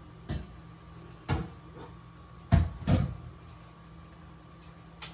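A few short household knocks and thumps, like cupboard or cabinet doors closing. The loudest two come close together about two and a half seconds in.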